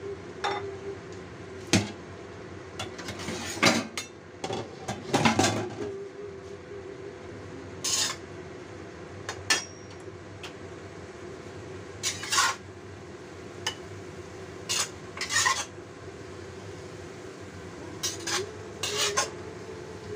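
Spatula scraping and knocking against a stainless steel wok as winter melon is stir-fried, in irregular clatters a dozen or so times, over a steady low hum.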